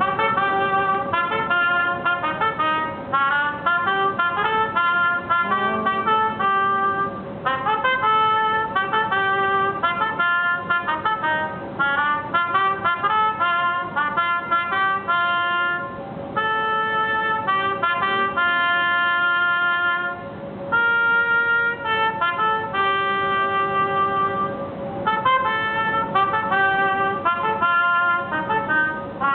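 Toyota Partner Robot playing a trumpet: a melody of separate notes, with quick runs and some longer held notes, and a steady tone held underneath throughout.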